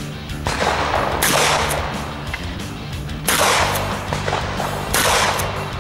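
A shotgun is fired in a series of loud blasts about two seconds apart, each with a long ringing tail. Background music plays under the shots.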